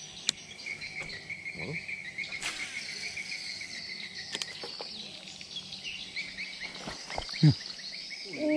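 Insects trilling in fast pulses, with birds chirping. There is a single sharp click just after the start, and a short, loud, low falling sound near the end.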